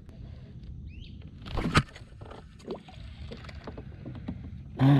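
Small clicks and knocks of fishing gear being handled aboard a plastic kayak, with one sharp knock about two seconds in.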